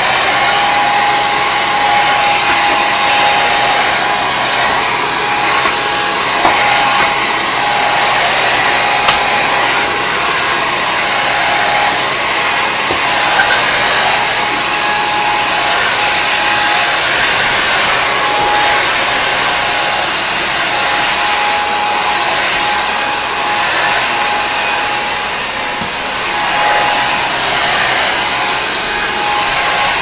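Vytronix 3-in-1 stick vacuum cleaner switching on and running steadily with a constant motor whine, its floor head pushed over a hard floor sucking up scraps of paper.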